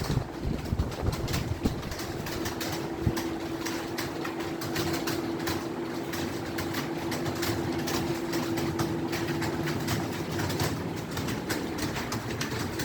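Fast typing on an Acer computer keyboard: a dense, continuous stream of key clicks. A steady low hum runs underneath from about two seconds in until near the end.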